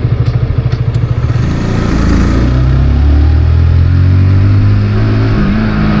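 Motorcycle engine running under way, heard from on the bike: a quick, even throbbing at first, then a steadier note that climbs slowly in pitch as the bike accelerates.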